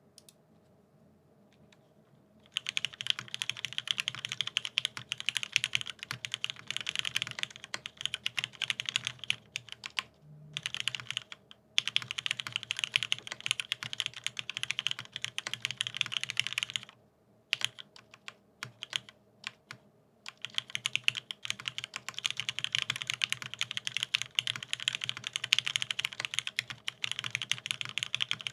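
Mechanical keyboard with lubed vintage Cherry MX Black linear switches on an aluminium plate, with Cherry dye-sub keycaps, being typed on in fast continuous runs of keystrokes. The typing begins about two and a half seconds in and pauses briefly a few times.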